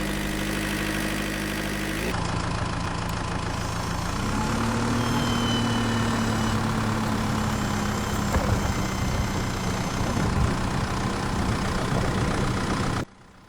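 Engine of a remote-control lawnmower running steadily, its note rising a little about four seconds in. The sound shifts abruptly about two seconds in and cuts off just before the end.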